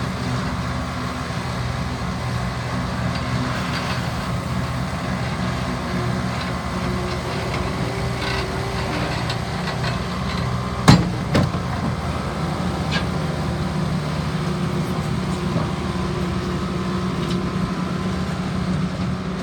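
Bobcat S650 skid steer's diesel engine running steadily, with a sharp knock a little past halfway and a lighter one half a second later.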